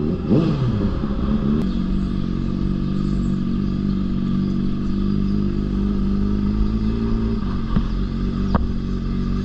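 Sport motorcycle engine running at low, steady revs while riding slowly in traffic, with a short rise and fall in revs about half a second in.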